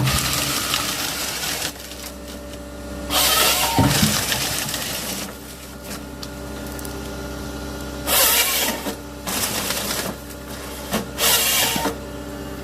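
Forestry harvester with a Nisula 555C harvester head at work: the carrier's engine and hydraulics hum steadily, broken by several loud, noisy bursts a few seconds apart as the head cuts and feeds logs.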